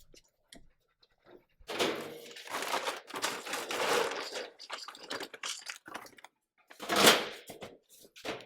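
Dogs eating dry food at a feeding spot: irregular crunching and clicking, a few seconds of dense rattling of kibble, and a loud clatter near the end.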